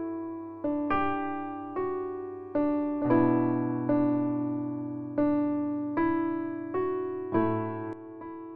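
Slow piano-style keyboard melody: single notes struck about once a second, each ringing and fading. The last note fades out near the end.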